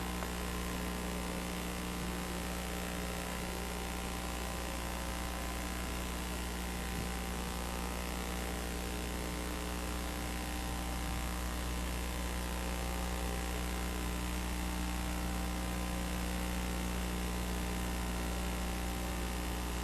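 Steady electrical hum and buzz, a stack of unchanging tones over a constant background hiss.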